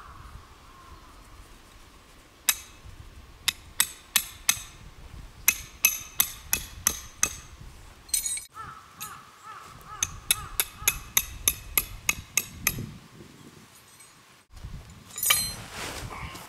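Metal tent stakes being hammered into the ground: two runs of quick, ringing metal strikes, about three a second, with a crow cawing near the end.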